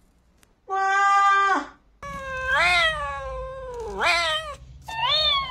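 A cat meowing in drawn-out calls, three of them after about two seconds, each rising and then falling in pitch. They follow a shorter, level-pitched call about a second in.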